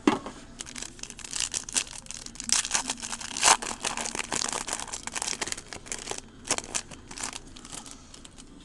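Foil wrapper of a 2008 Playoff Absolute Memorabilia football card pack being torn open and crinkled by hand: a dense run of crackling with a sharp tear at the start and the loudest snap about three and a half seconds in, thinning out after about seven seconds.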